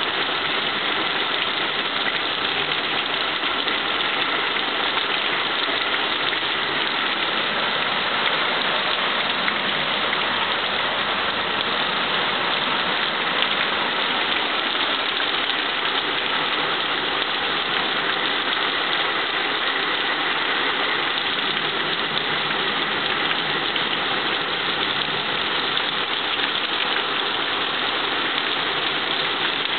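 Heavy thunderstorm rain pouring down in a steady, unbroken hiss.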